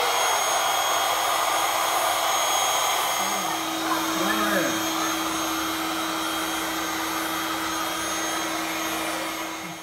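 Electric air blower running steadily as it inflates a Wubble Bubble ball, a constant whirring noise with a steady hum, cutting off at the very end.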